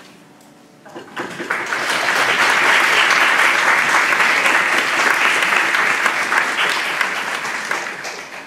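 Audience applauding a finished piano piece: the clapping starts about a second in, swells quickly, holds, and dies away near the end.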